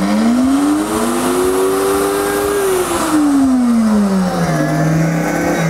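Vosco HS-212C bar blender running a preset program inside its sound-enclosure cover. The motor winds up in pitch for about two and a half seconds, winds back down over the next two seconds, and then holds at a lower speed: the program's automatic speed ramp.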